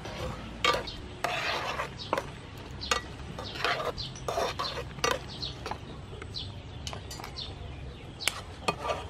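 Metal tongs, and later a wire mesh skimmer, clinking and scraping against a frying pan while stirring shrimp in simmering water: irregular short clinks and scrapes.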